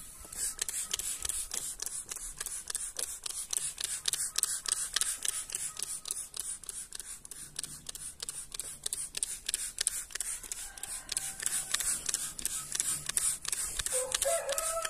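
Rapid, dense clicking over a steady high hiss, and a rooster crowing about a second before the end.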